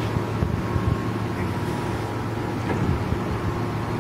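Clausing Colchester 17-inch swing engine lathe running with no cut, its spindle and headstock gear train turning with a steady low mechanical hum.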